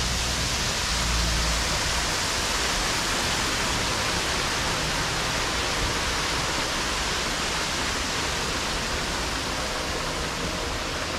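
Artificial waterfall: water spilling over concrete rock ledges into a shallow pool, a steady rushing splash.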